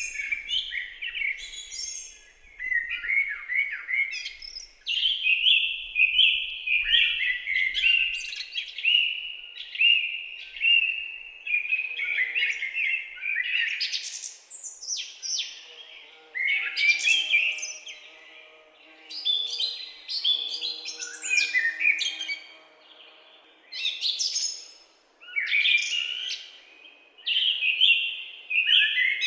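Several songbirds singing and chirping over one another in a forest, in quick high trills and calls with brief lulls between phrases.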